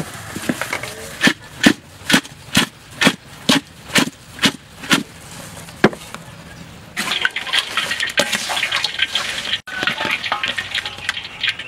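A run of about ten sharp knocks, roughly two a second, as a large aluminium basin lined with a woven bamboo mat is handled. From about seven seconds in, dense steady crackling follows, the sound of grasshoppers being worked into hot frying oil.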